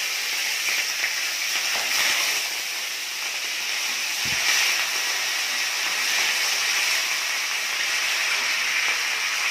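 Curry leaves and whole spices sizzling and spitting steadily in hot oil in a kadai as they are stirred with a wooden spatula, with one soft low knock a little past four seconds in.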